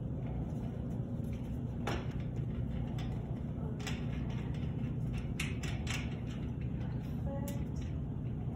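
Several sharp clicks and knocks as the wall-mounted oxygen and air flowmeters are handled and adjusted for a high-flow oxygen setup, over a steady low rumble.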